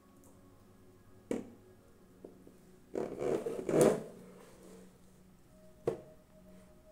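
Hands handling a plastic tray under a UV lamp. A click comes about a second in, a louder rustle and clatter around three to four seconds, and a sharp click near six seconds. A faint steady tone starts just before the last click.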